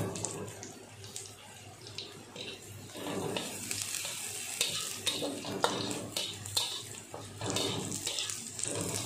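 Chopped shallots, garlic and ginger frying in hot oil in a wok, a steady sizzle with clinks and scrapes of a spatula stirring them. The clinks get busier from about three seconds in.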